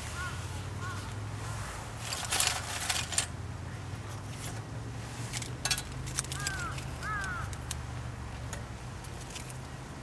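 Wooden ice-cream sticks clattering against the sides of a small sheet-metal fire stand as they are dropped in for kindling, with a cluster of light clicks about two seconds in and another near six seconds.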